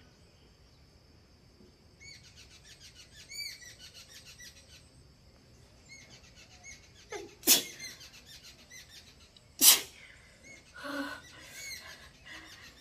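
A woman sneezes twice, sharply, brought on by tickling her nose with a cotton swab: once about seven and a half seconds in and again two seconds later. Birds chirp faintly throughout.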